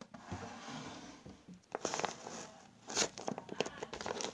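A squishy toy being squeezed and handled, giving irregular crinkling and crunching bursts. The loudest bursts come about two and three seconds in.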